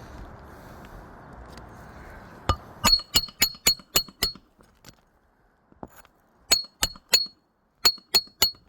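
Hammer striking metal on an asphalt shingle roof: a run of seven quick blows, then two sets of three, each with a sharp ringing clink. This comes after a couple of seconds of steady noise.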